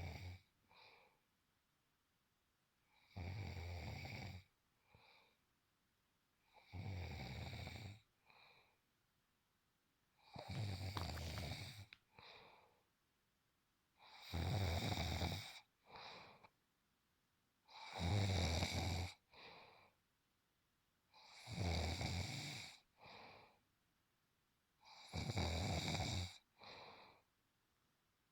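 A man snoring in his sleep: a loud, rasping snore about every three and a half seconds, each followed by a shorter, fainter sound, in a steady rhythm.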